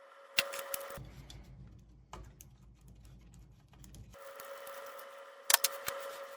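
Light clicks and taps of tools and wires being handled on a workbench, several sharp ones about half a second in and a pair a little after five seconds. A faint steady high whine comes and goes.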